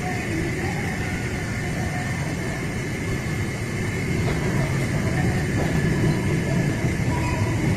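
Steady low rumbling noise that grows slightly louder about halfway through.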